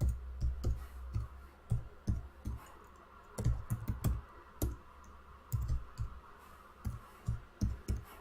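Computer keyboard typing in short runs of keystrokes with brief pauses between them: a user password being typed in and confirmed.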